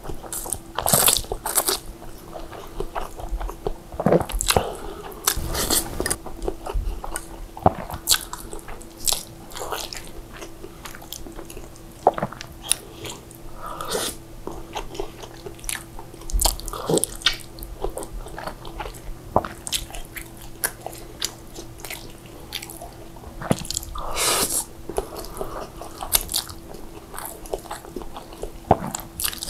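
Close-up mukbang eating sounds: a person slurping and chewing saucy fried instant noodles, in irregular wet mouth noises that go on throughout.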